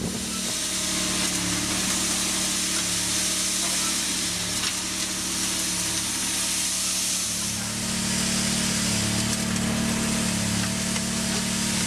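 A motor running steadily, with a low hum under a continuous hissing, grinding noise.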